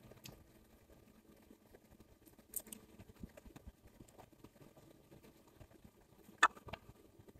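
Near quiet with a few faint, scattered clicks and taps of eating: a spoon against a plate of rice, the sharpest click about six and a half seconds in.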